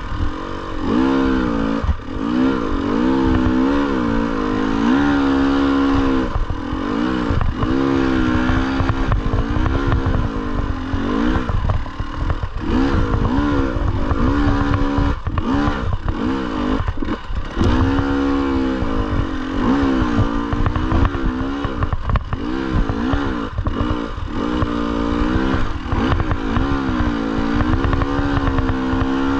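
Dirt bike engine revving up and down over and over as the throttle is worked along a rough, rocky trail, with some clatter from the bike over the rocks.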